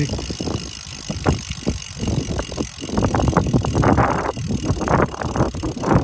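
Mavic wheel on a road bike spun by hand: a run of irregular clicks and knocks with a noisy rush, busier and louder in the second half.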